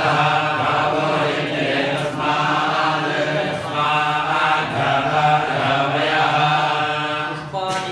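Male priests chanting Sanskrit mantras together in a steady, continuous recitation.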